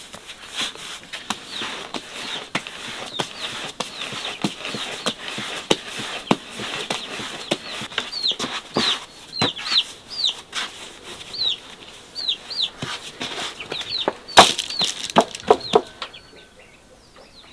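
Hands patting, slapping and shaping soft bread dough on a floured wooden board, making many short taps and knocks, with one louder knock near the end. Short, high bird chirps come in repeatedly from about halfway through.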